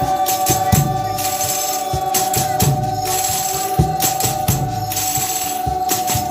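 Folia de Reis music: tambourines shaken and struck in a steady rhythm with low drum-like thumps, under one long held note.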